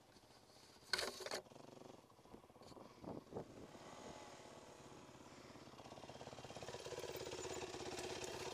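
A dirt bike's engine running low and growing gradually louder over the last few seconds as it approaches and pulls up; a brief clatter about a second in.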